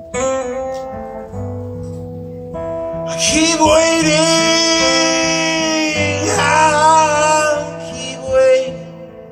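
Live blues song: a man singing into a microphone while playing acoustic guitar. The guitar plays alone at first, and the voice comes in about three seconds in with long, held notes that bend in pitch, dropping back out near the end.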